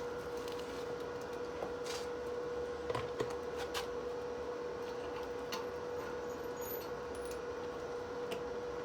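A steady hum holding one pitch, with a few scattered faint clicks and ticks.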